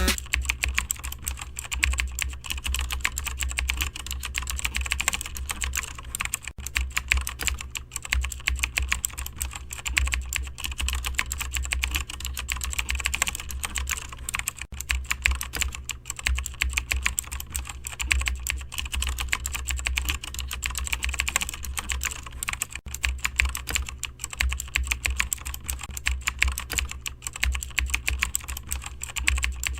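Continuous rapid typing on a computer keyboard: dense key clicks without a break, over a steady low hum.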